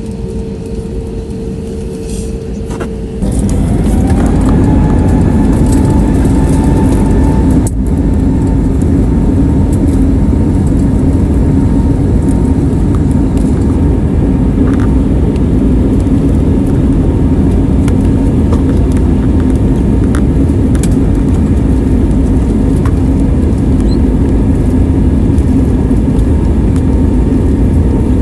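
Airbus A320neo jet engines heard from inside the cabin: a steady hum, then about three seconds in they spool up with a short rising whine to takeoff thrust. A loud steady roar follows as the aircraft accelerates down the runway, with a few light clicks.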